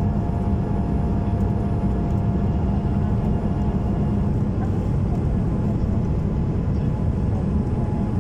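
Steady cabin noise of a Boeing 787-8 on approach, heard from a window seat by the wing: an even low roar of GEnx engines and airflow, with a faint steady hum running through it.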